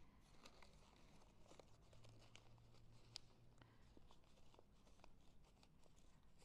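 Faint crinkling and scattered soft ticks of origami paper being tucked and folded by hand, on a nearly silent background.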